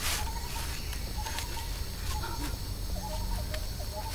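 Forest ambience: runs of rapid, repeated chirping calls over a steady low rumble, with a brief rustling burst at the start and a few short crackles.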